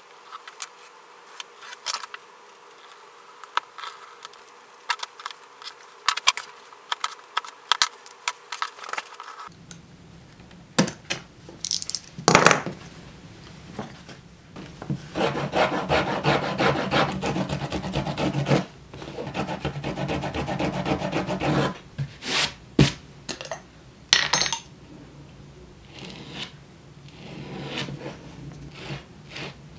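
Thick pieces of leather handled and rubbed against each other and a wooden workbench. Scattered light clicks and taps come first, then, after about the first third, several stretches of scraping and rubbing lasting a few seconds each.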